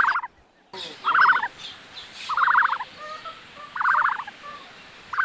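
A fowl calling: a short, rapid rattling call repeated five times, about every second and a half. The sound drops out briefly just after the start.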